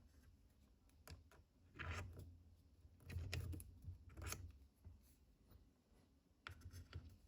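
Faint clicks and scraping as small metal tools and collets are handled in a wooden accessory box, in a few short bursts.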